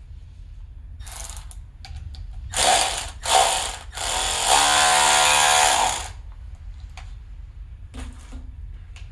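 Ratchet clicking on an adjustable band-type piston ring compressor as it is tightened around a piston: a few short runs, then one fast continuous run of about two seconds, the loudest part.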